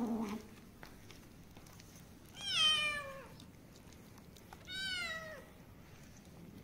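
Kittens meowing while being fed a lickable cat treat: two high meows about two seconds apart, each falling in pitch. A low, wavering cat call dies away at the very start.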